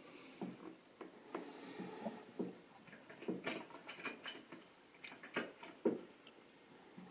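Model railway rolling stock running on the layout's track: an irregular run of small light clicks and knocks as wheels pass over rail joints and points, with the sharpest clicks about halfway through and near the end.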